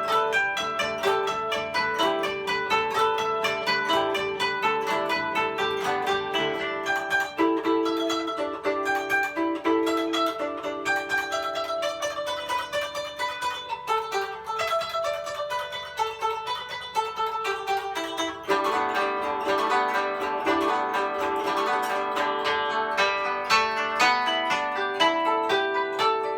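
Solo koto, the Japanese long zither, played in quick plucked notes that ring on. The running figures imitate a steam locomotive.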